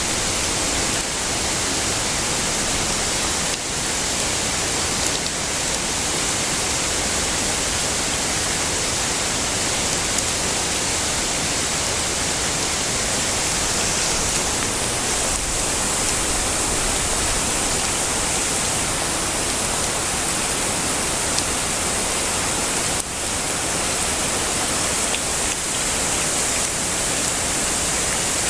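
Heavy rain falling steadily as a dense, even hiss, with no thunder.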